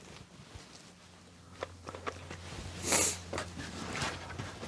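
Light clicks, taps and a brief scrape of a wooden board and tools being handled, over a faint low steady hum.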